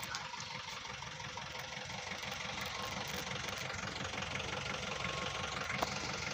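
1996 Hindustan Ambassador Classic's 1500 cc four-cylinder BMC diesel engine idling steadily with a diesel clatter.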